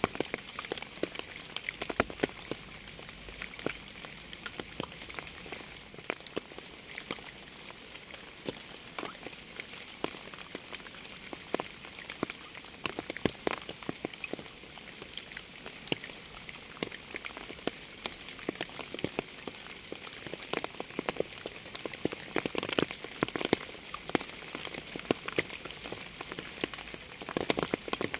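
Steady rain: a constant hiss with many individual drops landing close by as irregular sharp ticks.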